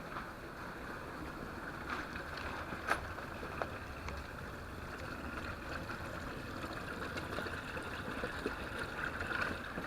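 Runoff water falling off a rock cliff as a waterfall after heavy rain: a steady splashing rush, with a few sharper drops or splashes between two and four seconds in.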